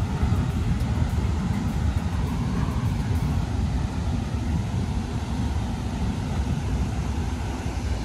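Steady roar of Athirapilly Falls, a large waterfall: a dense rush of falling water, heaviest in the deep rumble.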